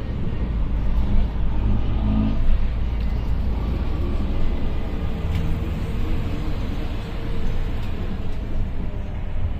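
Volvo Caio Procity city bus on the move: a steady low engine and road rumble.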